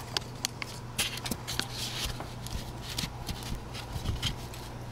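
Scattered light knocks, clicks and rustling from handling and test-fitting a cut trim piece, over a steady low hum.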